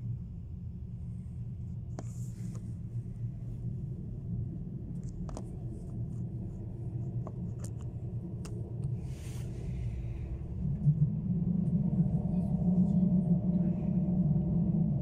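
Running noise inside the cabin of a moving ESh1 (Stadler KISS) double-deck electric train: a steady low rumble from wheels and running gear, with a few sharp clicks. About eleven seconds in the rumble grows louder and a steady hum of several tones joins it.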